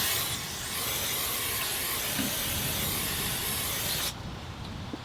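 Aerosol can of brake cleaner spraying in one continuous hiss of about four seconds, then cutting off abruptly.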